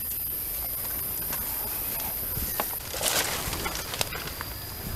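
Forest floor sounds: a steady high-pitched insect drone that stops about three seconds in, with a brief rustle of leaf litter and scattered small clicks and snaps of twigs and leaves being stepped on or handled.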